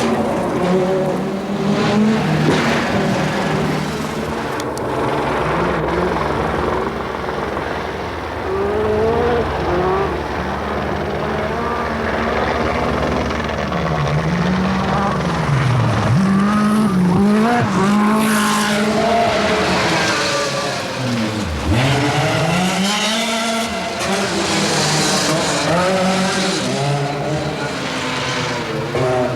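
Group B rally car engines at full race pace, revving hard, with the engine note climbing and then dipping sharply and recovering several times as the cars lift off and accelerate again.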